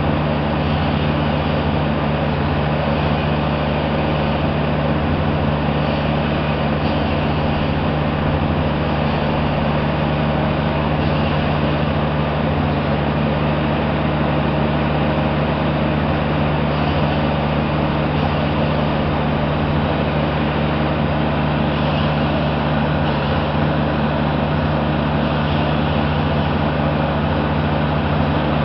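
Forestry machine's diesel engine running at a steady speed close by, a constant low hum that neither revs up nor dies down.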